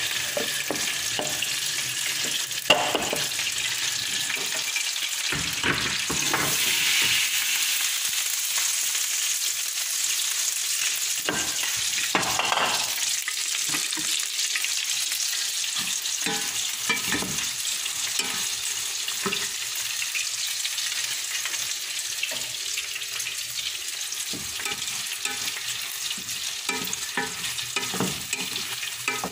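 Pre-soaked rice frying in hot butter: a steady sizzle, with the irregular scrapes and knocks of a wooden spatula stirring it in a metal pot.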